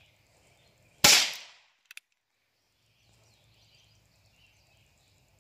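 A single .22 Short round fired from a Ruger Wrangler single-action .22 revolver about a second in: one sharp crack with a short fading tail, followed about a second later by a small click of the hammer being cocked. At the very end a sharp click as the hammer falls on a round that fails to fire, a light hammer strike.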